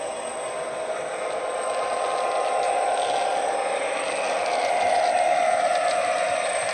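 Hornby TXS sound decoder in a model Class 66 diesel locomotive playing its diesel engine sound through the model's speaker, mixed with the rattle of the model's wheels on the track. It grows steadily louder as the locomotive approaches.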